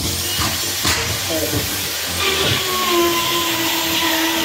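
Steady machine hiss, with a faint steady whine joining about two seconds in.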